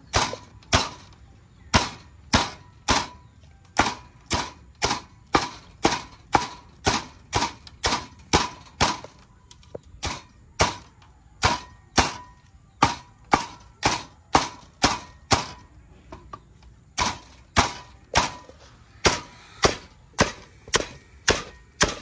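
Chopping with a knife on a board: steady sharp knocks about twice a second, with short pauses about ten and sixteen seconds in.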